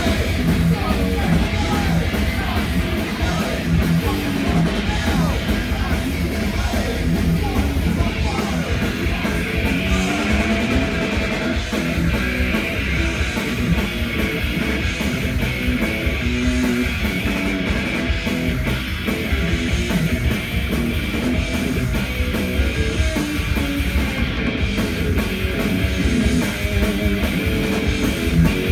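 A crossover thrash band playing live and loud without a break: distorted electric guitars, bass and a fast drum kit.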